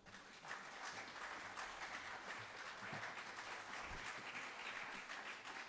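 Audience applause breaking out after the final string notes of a live piece. It swells within the first half second and then carries on as a steady, even clapping.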